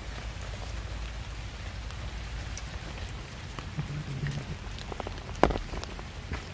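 A crowd of cats eating rice from a metal tray: a steady patter of small wet chewing and lapping clicks, with one sharper click about five seconds in.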